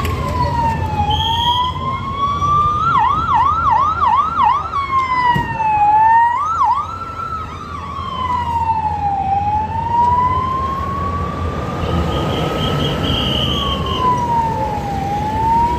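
Electronic vehicle siren wailing, its pitch sliding slowly up and down. About three seconds in it switches to a run of quick yelps, and it gives another short burst of yelps near the middle. A low rumble of traffic runs underneath.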